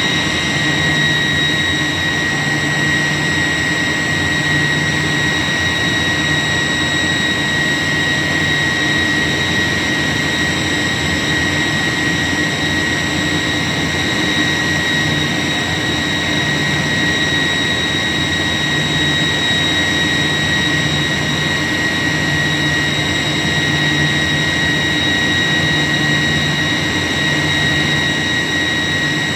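York YK 1000-ton centrifugal chiller running, its compressor giving a steady high whine over a broad rushing noise. A low hum underneath comes and goes every few seconds.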